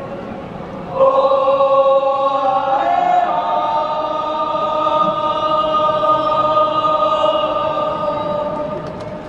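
Choral singing in long, held chords over a stadium sound system: a new chord enters about a second in and changes again around three seconds in, easing off slightly near the end.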